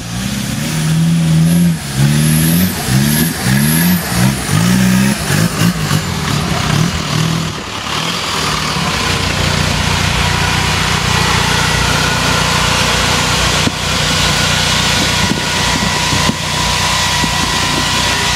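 Engine of a modified Suzuki Samurai off-road special, revved in a quick series of short blips over the first few seconds, then held steady at higher revs.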